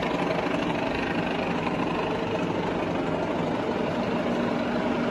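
Sachman universal-head bed milling machine running with its spindle at low speed: a steady mechanical hum of the motor and spindle drive.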